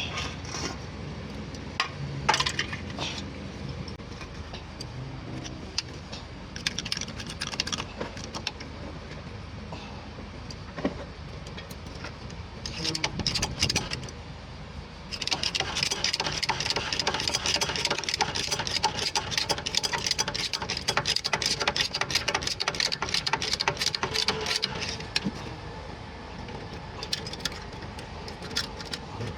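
Workshop tool noise: scattered metal clinks and knocks of hand tools, then about halfway through a power tool runs with a dense, rapid rattle for about ten seconds before stopping.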